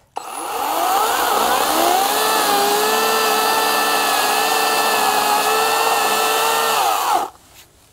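EGO Power+ CS1804 56-volt brushless battery chainsaw spinning up with a rising whine, then running steadily as it cuts through a stump close to the ground. Near the end its pitch falls away and it stops.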